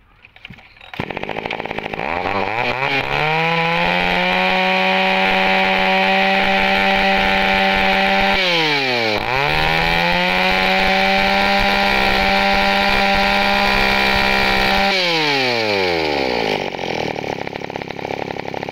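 Echo 33 cc two-stroke chainsaw started about a second in and revved to a high, steady scream. The throttle is let off and opened again about nine seconds in, then eased off again near the end, where the engine winds down.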